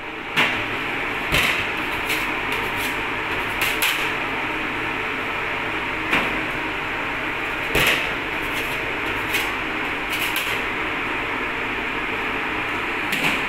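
Steady machine hum of a bakery workroom, with occasional short knocks and clatter about every one to two seconds.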